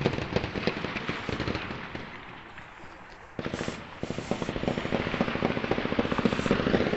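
Intense gunfire from a shootout: many shots in rapid succession, including fast automatic bursts. It thins out about two seconds in, then resumes heavily about three and a half seconds in.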